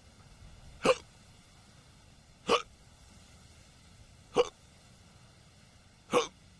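An old man hiccuping four times, one short sharp hiccup roughly every second and three-quarters.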